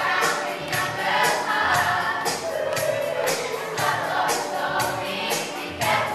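Recorded pop song played over a sound system for a dance routine: voices singing over a steady beat of about two beats a second.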